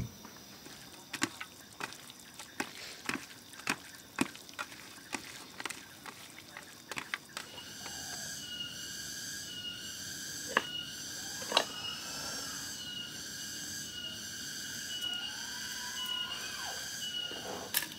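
Sharp knocks and clinks of food preparation at a table, about one or two a second, stop about seven seconds in. A pulsing insect chorus then sets in, with a few short bird calls over it.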